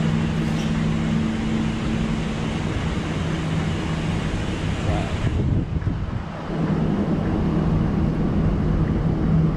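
Steady hum and hiss inside an ETS electric train coach. About five seconds in the higher hiss drops away and the sound dips briefly before the hum returns.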